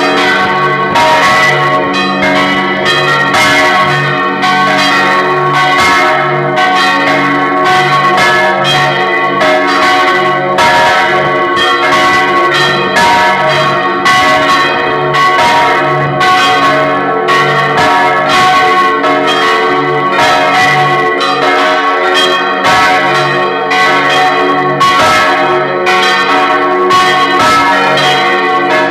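Several church bells swinging on motor-driven yokes, ringing a continuous loud peal heard close up inside the belfry. The strokes come rapidly and overlap, and each one rings on with many tones.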